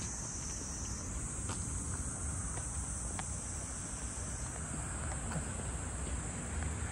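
Steady high-pitched chorus of insects, with a low rumble underneath and a few faint clicks.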